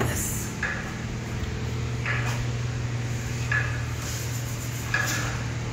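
A steady low hum with short, soft scuffs and rustles every second or so, as a man kneels on a rubber gym floor and rubs his hands together.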